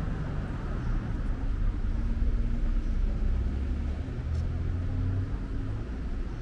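City street traffic: car engines running and passing as a low rumble, swelling twice.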